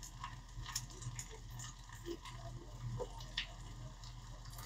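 Faint squishing and light clicks of a spatula stirring thick mustard and honey in a small saucepan, over a low steady hum.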